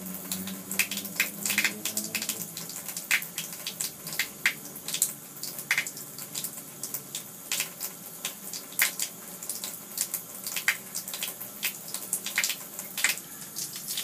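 Water running from a tap into a bathtub, with irregular sharp splashes and spatters. A low hum fades out about two seconds in.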